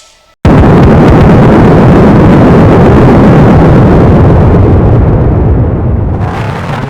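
KORG iMS-20 synthesizer (iPad app) producing a raw noise effect: a loud, low, rumbling, crackling burst that starts suddenly about half a second in and slowly dies away.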